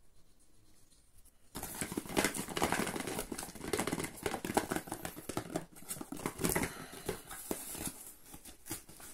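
Rustling and crackling handling noise with many small clicks as the cardboard packaging and plastic pill bottles are handled, starting about a second and a half in.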